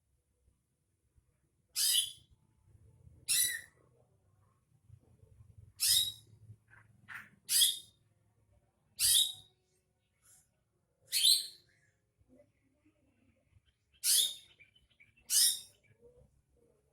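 Greater green leafbird (cucak ijo) giving short, high chirping calls, about eight of them spaced a second and a half to three seconds apart.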